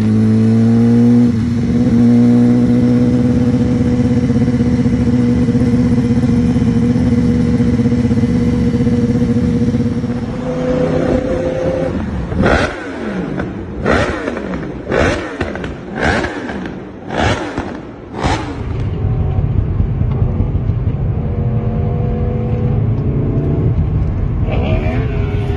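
Superbike engines: a BMW S1000RR's inline-four holding a steady note as it cruises, then a Yamaha R1 revved in six sharp throttle blips about a second apart, each falling away. A rougher engine drone from motorcycles on the road follows.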